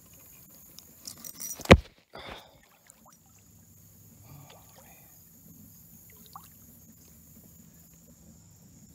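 A single sharp knock on a plastic kayak about two seconds in, with a little clatter around it, then faint knocks and water sounds.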